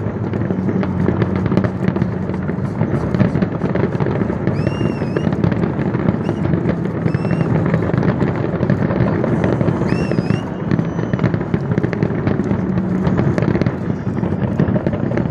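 Large fireworks display going off nonstop: a dense, continuous barrage of crackling and popping bursts.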